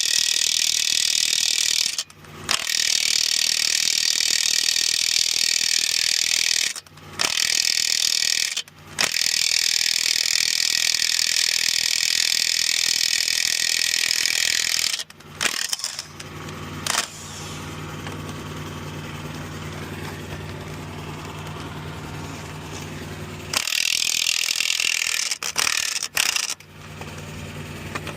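Power impact wrench running on the lug nuts of a Ford F700's Dayton wheels, loosening them in several runs of a few seconds each with short stops between. In the middle the tool stops and a quieter, steady low hum takes over for several seconds.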